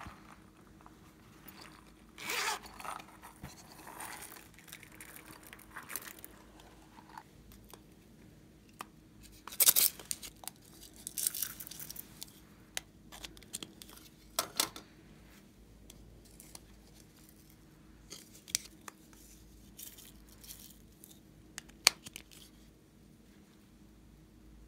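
Hands handling small plastic toy-shaped containers and scattering sprinkles and glitter onto slime in a clear plastic box: scattered rustling, scraping and clicking. The loudest bursts come a couple of seconds in and around ten and fifteen seconds in, with a single sharp click late on.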